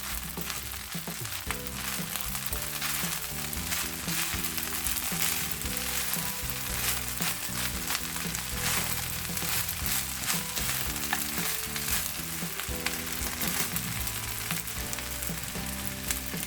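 Pieces of chicken breast and roasted nuts sizzling in hot oil in a pan while being stirred, with crackles and scrapes of the spatula. Soft background music with held low notes runs underneath.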